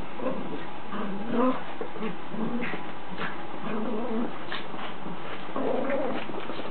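Two small dogs, a Chihuahua and a puppy, play-fighting: a string of short, low whining and growling noises, loudest about a second and a half in and again near the end.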